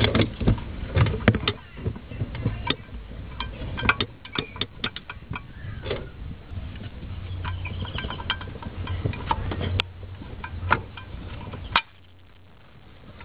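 Scattered metallic clicks and taps of bolts and a metal bracket being handled and fitted by hand onto an EGR valve, over a low rumble. The clicking stops near the end.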